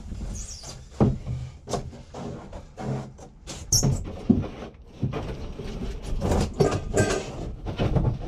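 A 1972 Winnebago Brave's engine doghouse cover being carried, lifted and set back down over the engine: irregular knocks, bumps and scrapes, with the sharpest knocks about a second in and around four seconds in.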